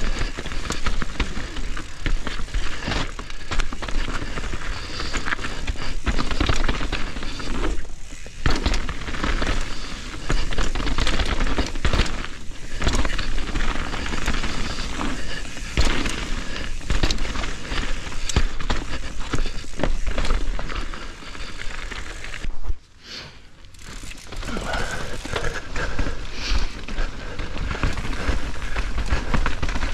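Mountain bike descending a wet dirt trail at speed: tyres rolling and clattering over the ground with rapid knocks and rattles from the bike, over a steady rush of wind on the microphone. The noise drops away sharply for about a second, roughly two-thirds of the way through.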